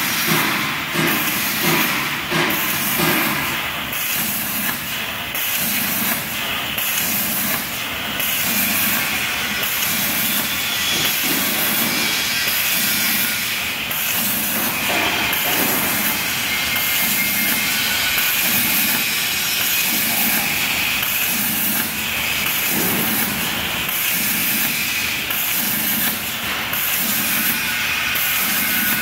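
CNC plasma cutter's torch hissing as its arc cuts carbon steel plate at 63 A power. The hiss is steady, with a regular pulsing about once a second.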